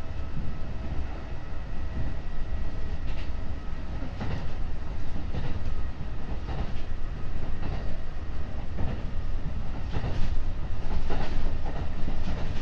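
Kintetsu 8000 series electric train running at speed, heard from inside a passenger car: a steady low rumble of wheels on rail with a faint steady whine. The wheels clack over rail joints at irregular intervals, about once every second or so.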